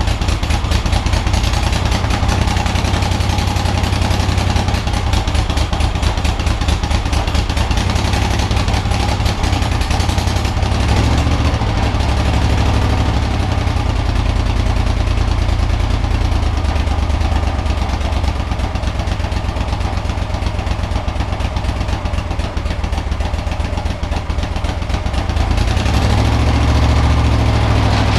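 1975 Moto Guzzi 850T's air-cooled transverse V-twin running steadily, freshly rebuilt and on its first start, its low exhaust rumble rising somewhat about eleven seconds in and again near the end.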